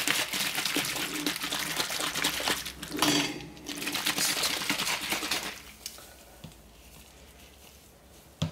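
A plastic squeeze bottle of titanium dioxide diluted in water being shaken hard to mix the settled pigment: a dense clatter of quick clicks for about five and a half seconds, with a short break about three seconds in.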